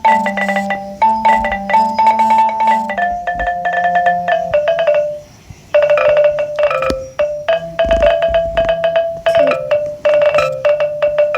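A marimba-like melody played back by a music-making app: rapid repeated note strikes over a steady lower line. It drops out briefly about five seconds in, then resumes.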